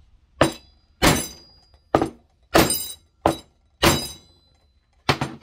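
Hammer blows on a wooden board laid over a Sea-Doo 140 mm jet pump housing, driving a new wear ring into its bore. About eight sharp strikes, roughly two-thirds of a second apart, some with a faint metallic ring.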